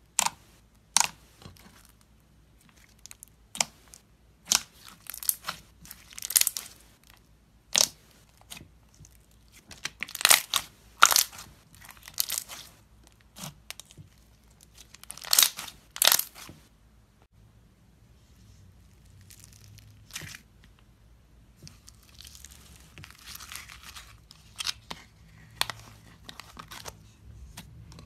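Foam-bead slime (floam) squeezed, pressed and stretched by hand, its beads crackling and popping in irregular bursts. In the last ten seconds or so this turns to quieter, denser crinkling.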